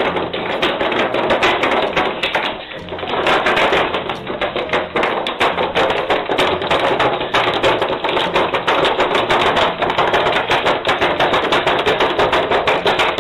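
Clear plastic crinkling and crackling as a small dog paws and chews at it: a dense, rapid run of crackles, with a short lull about two and a half seconds in.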